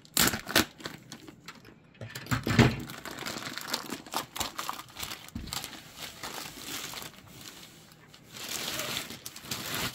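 Scissors snipping into a thin clear plastic sleeve, a few sharp cuts first, then the plastic crinkling and rustling as it is cut and pulled off a rolled canvas, with louder surges of rustling in between.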